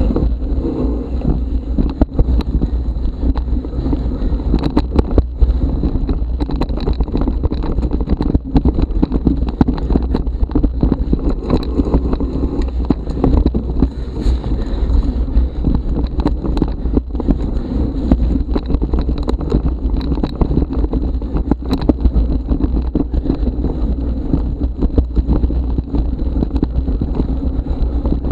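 Wind buffeting an action camera's microphone on a moving mountain bike, with a steady low rumble and frequent short rattles and knocks as the bike rolls over the trail.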